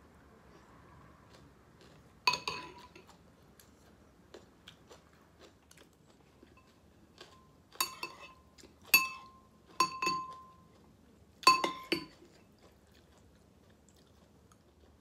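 Eating at a table: an eating utensil clinks sharply against dishware five times, each strike ringing briefly, with faint chewing between.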